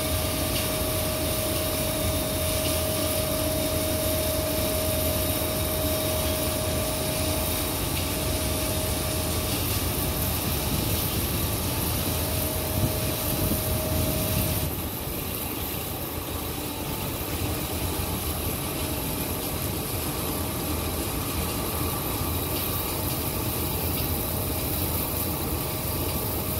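A palm oil mill's wet shell transport fan runs steadily, blowing palm kernel shells through its pipe: a constant machine hum and rush with a steady whine. About halfway through, the hiss and whine become somewhat quieter.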